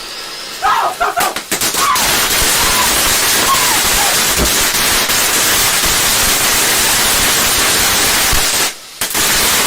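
A lit firework spraying with a loud, steady hissing crackle that sets in about a second and a half in, breaks off briefly near the end and starts again.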